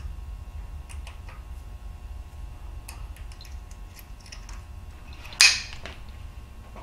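Small metallic ticks and clicks of an Allen wrench working the collet alignment set screw inside a Bridgeport milling machine's R8 spindle, pushing the damaged screw inward, over a low steady hum. One much louder sharp metallic clack with a short ring comes about five and a half seconds in.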